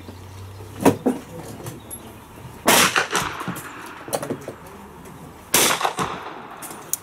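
Swiss M1882 7.5mm revolver firing .32 S&W Long cartridges: two shots about three seconds apart, each a sharp report with a short echoing tail.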